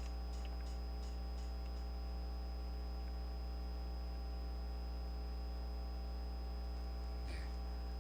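Steady electrical mains hum with a stack of overtones and a faint high-pitched whine, unchanging throughout.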